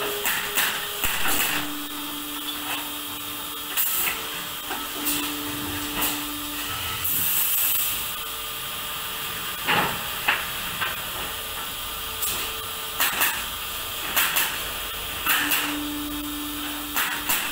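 Automatic pallet stacker with a hydraulic lifting table working as wooden pallets are piled: a steady machine hum comes and goes, with a short hiss about seven seconds in and scattered knocks and clacks of wood and steel.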